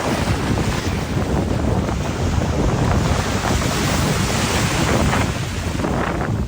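Wind buffeting the microphone over the wash of the sea: a steady, rumbling noise.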